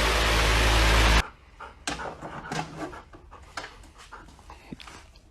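A loud, steady rushing noise cuts off about a second in. Then a dog pants in short, irregular breaths.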